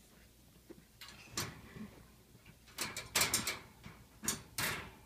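Wire dog crate rattling and scuffing in several short bursts as a small dog pushes and noses against it. The loudest bursts come about three seconds in.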